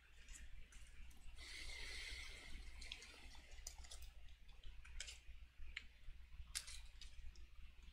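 Faint handling sounds at a fly-tying bench: scattered light clicks and a brief crinkle of a small plastic bag about a second and a half in, over a steady low hum.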